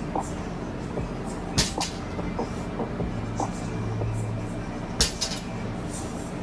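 Gym room noise: a steady low hum with two sharp knocks, about a second and a half in and again about five seconds in, and a few lighter ticks.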